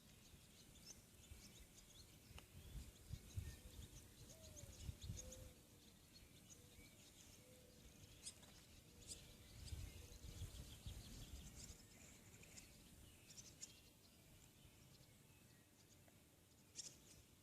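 Faint birdsong outdoors: many small birds chirping and twittering on and off throughout, over a low, uneven rumble.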